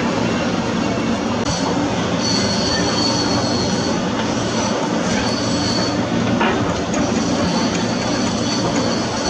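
Heavy construction machinery, an excavator, running steadily with a low engine hum. A high metallic squeal comes and goes from about a second and a half in.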